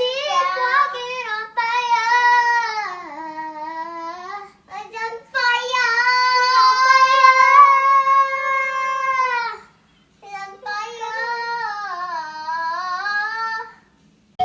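A child singing in several long, held phrases with short pauses between them, the pitch sliding down at the end of each phrase.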